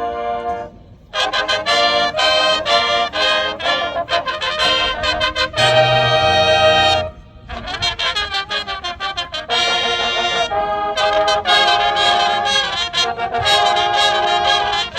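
Marching band brass playing in loud phrases broken by short pauses, with trumpets and trombones on top and a held chord with low brass about six seconds in.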